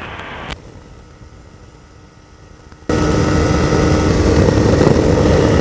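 Ultralight's Hirth 3202 two-stroke engine and propeller with wind noise in flight: a quiet low rumble at first, then about three seconds in a sudden jump to a loud, steady drone.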